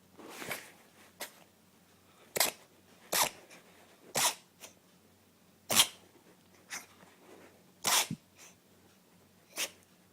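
A run of about seven short, sharp sneezes, one every one to two seconds.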